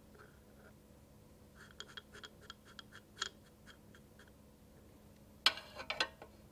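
Tiny metal spoon clinking and scraping against a small glass bowl while mixing sugar and agar powder: a quick series of light, ringing ticks. About five seconds in comes a short, louder clatter of small utensils.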